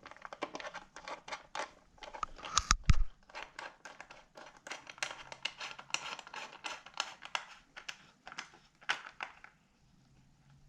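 Hand ratchet with a hex bit clicking in quick, irregular runs as it drives small machine bolts on a motorcycle radiator guard until just snug. There are a couple of louder knocks about three seconds in.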